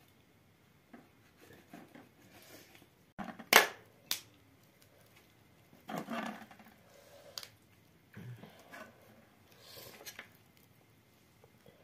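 A raw whole chicken being cut up with a knife on a metal tray: irregular sharp cracks and clicks of the blade going through joints and knocking the tray, with quieter scraping and rustling between. The loudest crack comes about three and a half seconds in.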